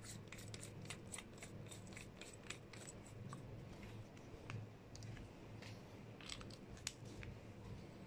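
Many faint, irregular small metallic clicks and light scraping as the metal parts of a Cometa Lynx PCP air rifle regulator are screwed back together by hand, during reassembly before its output pressure is tested.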